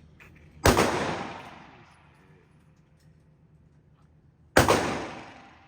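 Two pistol shots about four seconds apart, each a sharp crack that rings out and fades over about a second.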